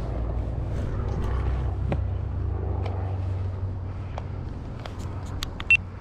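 A steady low mechanical hum, with light footsteps clicking on composite decking and a few sharper clicks near the end.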